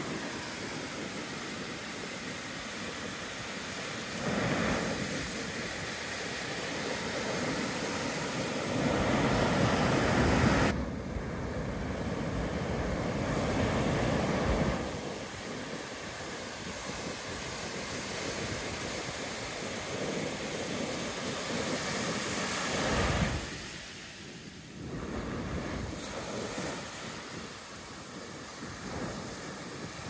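Ocean surf: waves breaking offshore and foaming up over the sand, rising and falling in surges, the loudest about ten seconds in, ending suddenly. Wind buffets the microphone at times with a low rumble.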